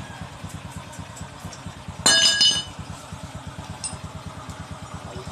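An engine idling with an even, fast low chugging. About two seconds in there is a sudden metallic clank that rings briefly.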